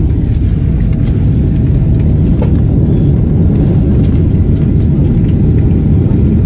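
Loud steady low rumble heard inside the cabin of a Boeing 767 airliner as it rolls down the runway after touchdown: engine and runway noise during the landing rollout.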